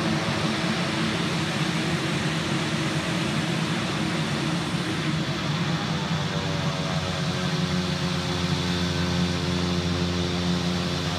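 Beechcraft King Air's twin PT6A turboprop engines running at taxi power as the aircraft rolls toward the listener, a steady rush of engine and propeller noise. About halfway through, a set of humming tones slides down in pitch and then holds steady.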